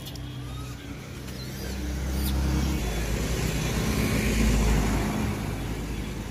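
A motor scooter passes close by: its engine hum builds over a few seconds, is loudest about four seconds in, then fades.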